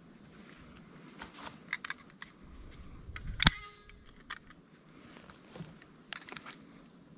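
A scatter of light clicks and knocks, like gear being handled, with one sharp, much louder clack about three and a half seconds in that rings briefly.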